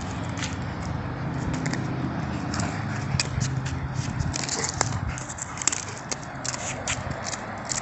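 A dog crunching and gnawing a pinecone: a running series of crisp cracking clicks, denser and louder from about four seconds in. A low steady drone sits underneath for the first half.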